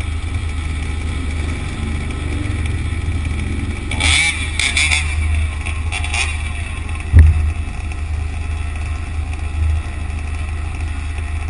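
Road traffic noise with a steady low rumble, swelling louder about four to five seconds in and again briefly around six seconds, and one sharp knock just after seven seconds, the loudest moment.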